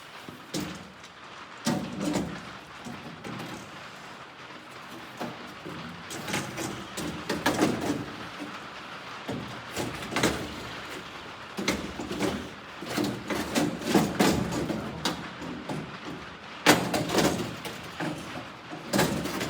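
Irregular metal clunks, scrapes and rattles of hand work on an old pickup truck's steel door and window parts.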